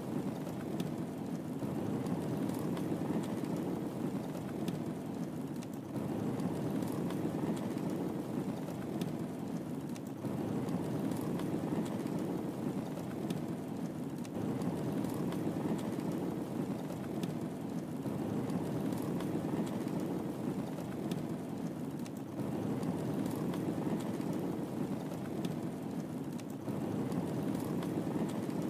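Wood fire burning in a fireplace: a steady low rushing of flames with scattered faint crackles and pops, swelling and easing every few seconds.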